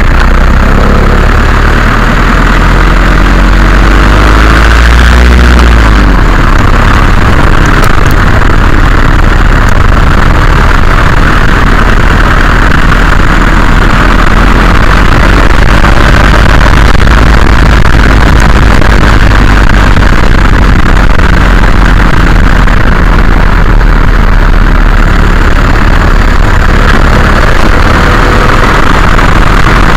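VW Golf Mk4 TDI on the move, loud engine and road noise picked up close to the suspension, with the diesel engine's note rising in the first few seconds. The car has a knocking/rattling noise from the suspension that the owner is trying to trace.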